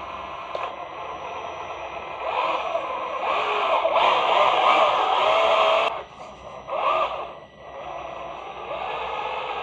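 Radio-controlled truck's electric motor and gears whining, the pitch rising and falling with the throttle. It swells in the middle, cuts off sharply, then gives one short burst.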